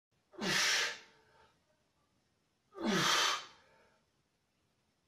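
A man breathing out hard with the effort of seated dumbbell curls: two loud exhalations about two and a half seconds apart, each starting with a brief grunt that falls in pitch.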